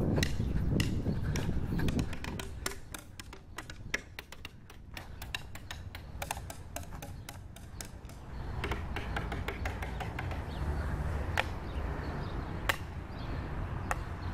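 Rapid, irregular sharp clicks and taps over a low rumble like wind or handling on the microphone. The clicks come thickest in the first half, and the rumble swells again after about eight seconds, with a few louder clicks near the end.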